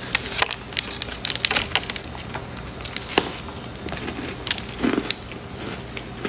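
Frosted cookie topped with crunchy animal crackers being broken apart and chewed close to the microphone, with irregular sharp crunches and crackles and a low steady hum underneath.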